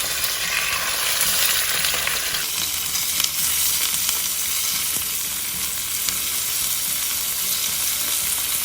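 Chicken thighs sizzling in hot rapeseed oil in a pan: a steady hiss with fine crackling.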